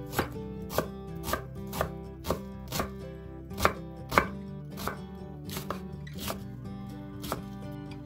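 Chef's knife chopping an onion on a bamboo cutting board: about a dozen sharp knocks of the blade on the wood, roughly two a second and unevenly spaced.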